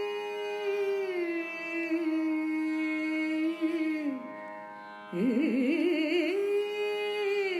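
Woman singing a Sanskrit shloka in Carnatic raga style over a steady drone. She holds a long note that bends down near the middle, then after a brief pause rises again with quick wavering ornaments.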